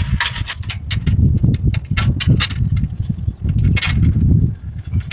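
Wind rumbling on the microphone, with a run of sharp metal clicks and taps as extruded-aluminum solar mounting rails and a bolt are handled.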